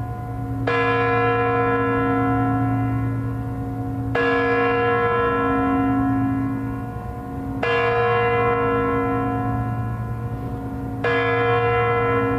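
The hour bell of the Kremlin's Spasskaya Tower clock (the Kremlin chimes) striking midnight: four strikes about three and a half seconds apart, each ringing on until the next.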